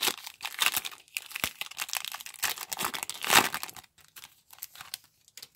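Wrapper of a Topps baseball card pack crinkling and tearing as it is torn open by hand, loudest about three and a half seconds in, then a few light clicks as the cards are handled.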